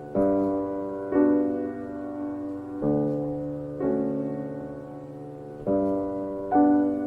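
Background piano music: slow, soft chords struck every second or so, each left to ring and fade.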